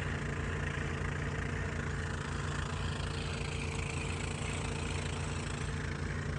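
Small boat engine running steadily at low, even speed, as when trolling.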